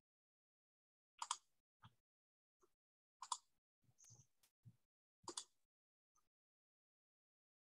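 Near silence broken by about eight faint, short clicks and bumps, spread irregularly over the seconds.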